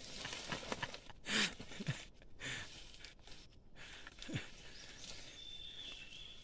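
Soft rustling of leaves and stems and footsteps as someone pushes through dense forest undergrowth, with a brief low falling sound about four seconds in.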